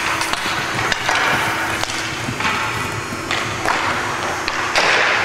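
Ice hockey play: skate blades scraping and hissing on the ice in repeated short bursts, with sharp clacks of sticks hitting the puck and the ice, over a faint steady hum.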